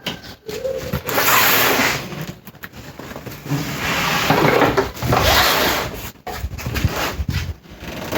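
Rubbing and scraping from hands handling the table saw, in three long noisy strokes a second or two apart.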